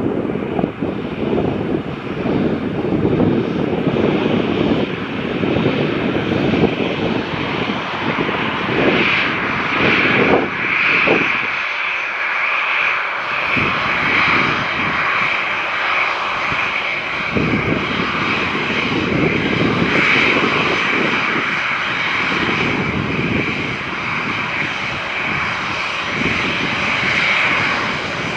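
Airliner's engines running close by: a loud steady rumble, with a steady high whine that grows stronger about nine seconds in.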